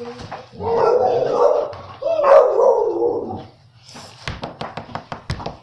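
A dog barking twice, each bark long and drawn out, about a second apart. Near the end comes a quick run of sharp clicks.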